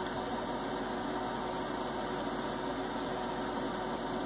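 Steady mechanical hum with an even hiss and a faint steady tone, unchanging throughout.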